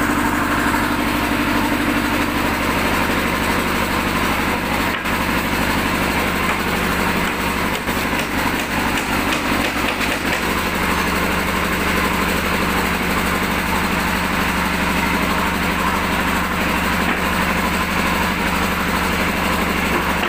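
Electric walk-behind concrete floor grinder running steadily, its disc grinding a concrete floor. The steady motor hum drops slightly in pitch about two seconds in, over a dense rasping noise.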